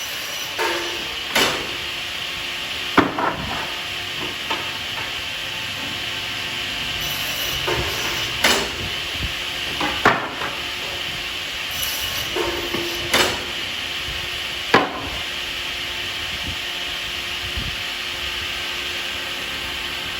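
Double-end wood cut-off saw running with a steady high whine, its blades cutting through wood pieces with sharp knocks and brief cutting bursts about nine times, some in pairs less than a second apart.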